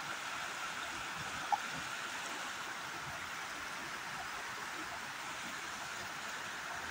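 Steady rush of water flowing in a small river. A brief, short tone sounds once about a second and a half in.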